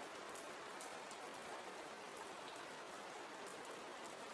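Steady, faint rain falling: an even hiss with scattered light drop ticks.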